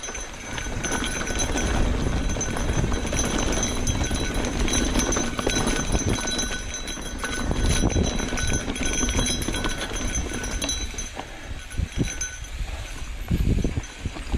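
Mountain bike rolling down a rough, rocky dirt singletrack: tires running over rocks and roots and the bike rattling, with a steady low rumble underneath.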